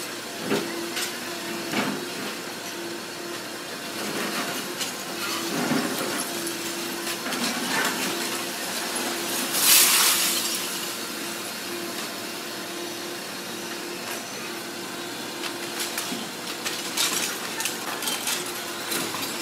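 Doosan DX225 hydraulic excavator demolishing a concrete-and-brick building. The engine hums steadily under scattered knocks and clatter of breaking masonry, and about ten seconds in a loud crash of rubble falls.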